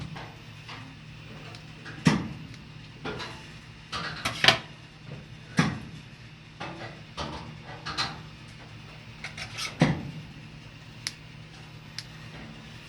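Irregular clatter of dishes and utensils: a dozen or so sharp knocks and clinks at uneven intervals, the loudest about two, four and a half, five and a half and ten seconds in, over a steady low hum.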